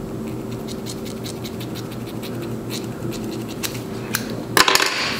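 Scissors snipping through long curly wig hair: a run of small, sharp clicks with the scrape of hair. A louder, brief rustling scrape comes near the end.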